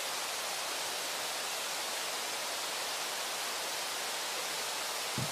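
Brooks Falls on the Brooks River, the steady rush of whitewater pouring over the falls. A brief low thump sounds just before the end.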